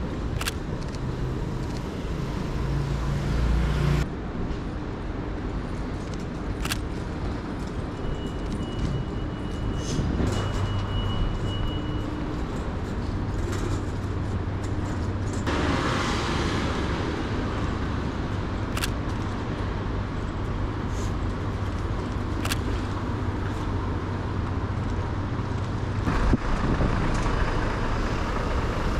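City street traffic: cars and other vehicles passing over a steady low rumble, with one louder rushing pass about halfway through. A few sharp clicks sound scattered through it.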